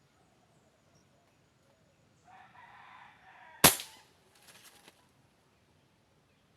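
A bird calls for over a second, then a single sharp gunshot rings out about three and a half seconds in, followed by a brief squawk from the hit woodpecker, which cries out and flies off.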